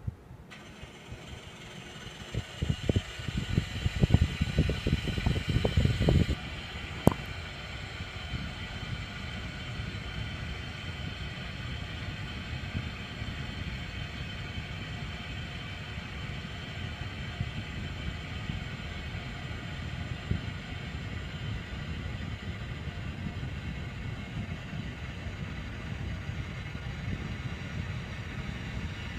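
Air conditioner (model AF-TS151WLH, made in 2010) making an odd sound. Just after the start it begins running with a hum of several steady tones. From about two seconds in, an irregular low rattling rumble lasts until about six seconds, and a sharp click follows about a second later. Then it runs on steadily with a low rumble.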